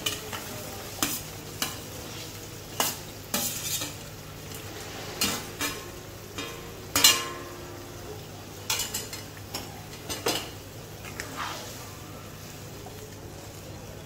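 Fried chicken pieces being tipped from a steel plate into a pan of simmering chili-tomato sauce and stirred with a spatula: repeated knocks and scrapes of plate and spatula against the pan over a steady sizzle, the loudest knock about seven seconds in.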